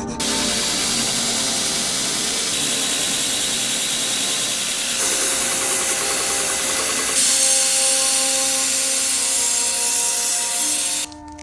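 Power grinder working steel, a steady hissing grind that shifts in tone about five and again about seven seconds in, then cuts off suddenly near the end.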